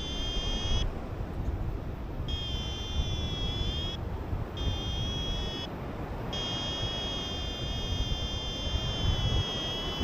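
Paraglider's variometer sounding a steady high electronic tone in long stretches, broken by short gaps and then held from about six seconds in, while the pilot is losing height. Wind rushes over the microphone underneath.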